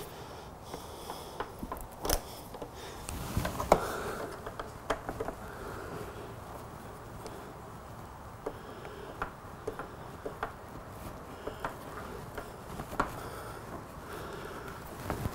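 Scattered light clicks and taps of a plastic motorcycle handlebar switch housing being handled and pressed together, with a few sharper knocks about two and almost four seconds in.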